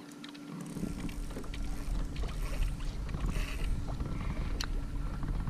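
Water sloshing and knocking against a plastic fishing kayak's hull, with scattered clicks and knocks, one sharper near the end. A steady low rumble comes in just under a second in.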